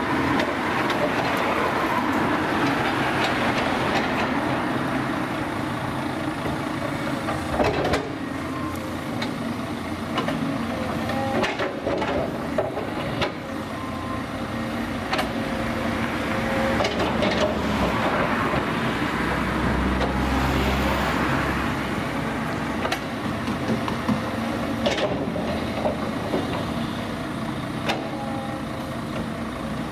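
Cat 323D crawler excavator at work: its diesel engine running steadily under changing load, with a faint whine coming and going and occasional sharp knocks from the digging.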